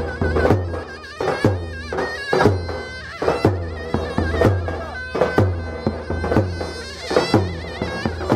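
Zurna playing a fast, ornamented folk dance tune, its reedy nasal tone over davul bass drum strokes in a steady, loping rhythm of roughly one to two beats a second.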